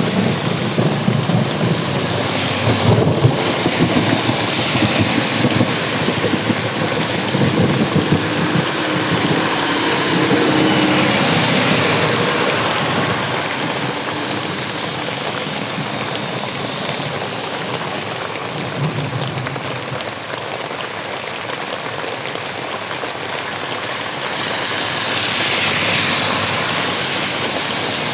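Heavy rain falling steadily, with thunder rumbling low through roughly the first half. Traffic hisses along on the wet road, and a swish swells and fades near the end, like a vehicle passing through spray.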